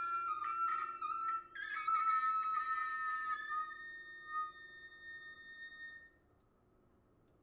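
Grand piano playing a few high-register notes and chords, each struck sharply and left to ring, dying away about six seconds in.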